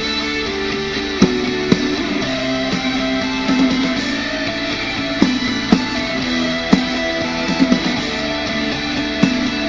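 Guitar music without singing: chords ringing on, with a few sharp strummed attacks at uneven intervals.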